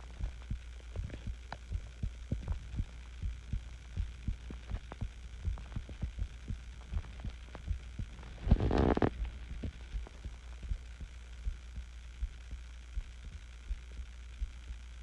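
Close-miked human heartbeat, a steady run of soft low thumps over a low hum. About halfway through there is a brief, louder noise that covers a wide range.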